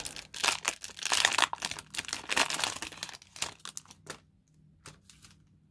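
Foil wrapper of a 2000 Donruss football card pack being torn open and crinkled for about three and a half seconds, followed by a few light rustles and clicks as the cards are handled.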